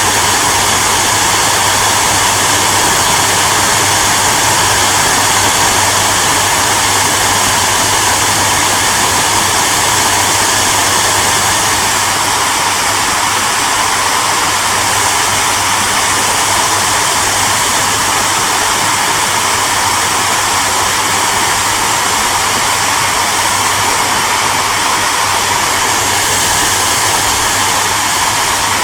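Hair dryer running continuously, a steady airy rush of fan and blown air with a low motor hum underneath and no change in speed.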